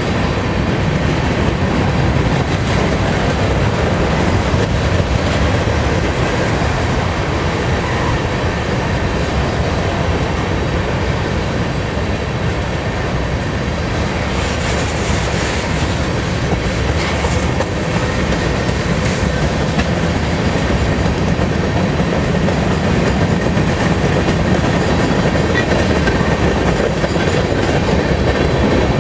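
Freight train of covered hopper cars rolling past close by: a steady rumble with the clatter of steel wheels on the rails.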